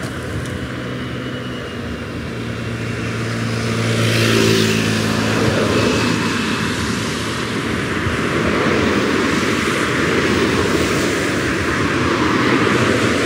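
Road traffic passing close by on a road bridge. A steady low engine hum runs through the first few seconds, then tyre and road noise swells about four seconds in as cars go by, and stays loud.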